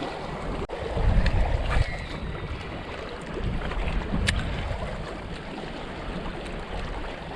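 Wind buffeting the microphone: a low rumble that rises and falls in gusts, with a single sharp click about halfway through.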